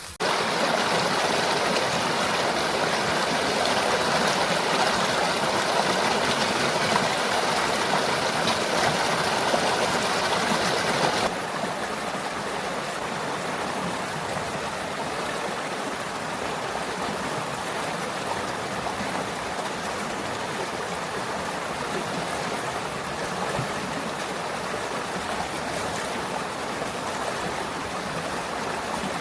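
Running water, a steady rush like a forest stream, dropping suddenly to a quieter level about eleven seconds in.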